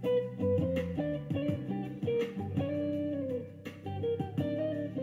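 Background music: a guitar playing plucked notes, some of them bending in pitch.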